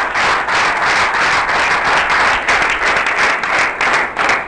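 Audience applauding, many hands clapping in a dense, steady wash.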